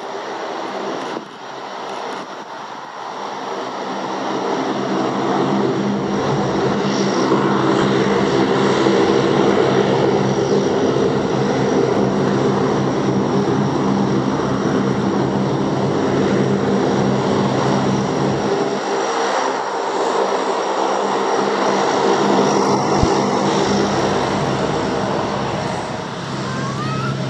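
Four-engine turboprop Lockheed WP-3D Orion taxiing, its Allison T56 engines and propellers making a steady multi-tone drone that grows louder over the first several seconds and then holds level.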